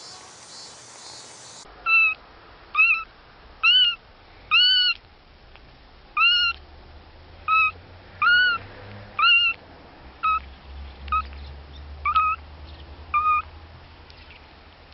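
A kitten mewing over and over, about a dozen short, high-pitched mews roughly a second apart, each rising and then falling in pitch.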